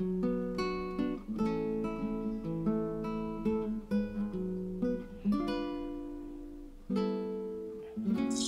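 Background music: an acoustic guitar plucking a melody, single notes starting sharply and ringing out, about two a second.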